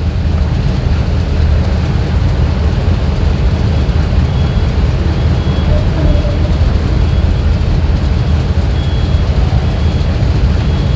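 The 2001 GMC Yukon's 6.0 V8 idles with a steady low rumble. From about four seconds in, a faint short electronic beep repeats about every two-thirds of a second.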